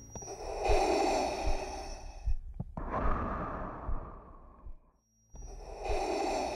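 Darth Vader's respirator breathing through the mask: a slow mechanical breath drawn in and let out. It falls to a brief silence about five seconds in, then the next breath begins.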